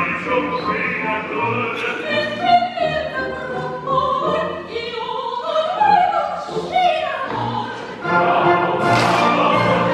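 Male opera voice singing with orchestra; about eight seconds in the music grows louder and fuller as the chorus joins in.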